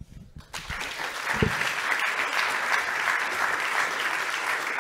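Audience applauding, starting about half a second in and going on steadily.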